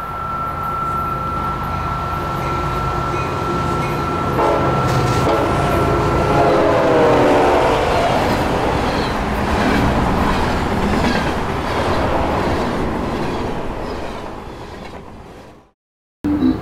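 A passing train rumbling, with a thin, steady high squeal for the first several seconds and a lower pitched tone that bends in the middle. The sound cuts off abruptly near the end.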